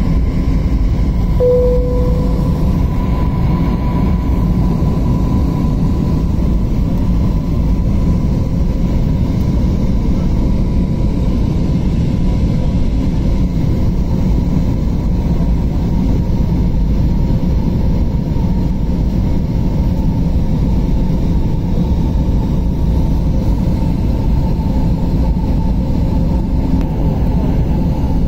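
Steady airliner cabin noise on approach to landing: engines and air rushing past the fuselage, heard from inside the cabin, with a faint steady whine over it. A brief single tone sounds about a second and a half in.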